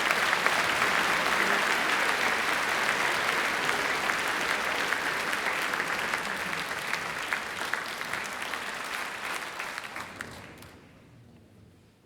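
Concert audience applauding: a dense, steady mass of clapping that dies away quickly near the end.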